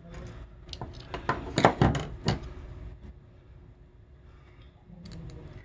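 Small clicks and knocks of telephone handset parts being handled and fitted together on a hard tabletop. A cluster of sharp taps comes in the first two seconds or so, then the sound turns to fainter handling.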